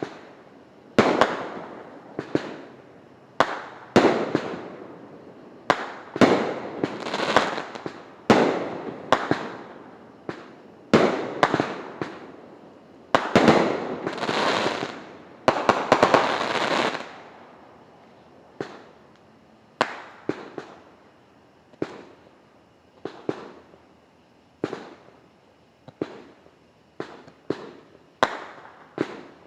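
Liberty Bell consumer fireworks going off in a long string of sharp reports, at first about one a second, each trailing off in crackle. Midway there is a longer run of crackling. Later the reports come shorter and more closely spaced.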